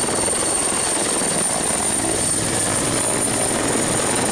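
Helicopter sound effect: steady rotor and engine noise with a thin high whine over it.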